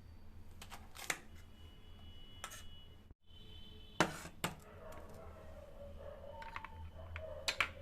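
Kitchen knife tapping and clicking against a cutting board while green chillies are slit lengthwise: a few separate sharp taps, the loudest about four seconds in.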